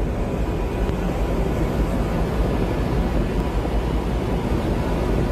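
A tugboat's engine running with a steady low rumble, mixed with wind buffeting the microphone.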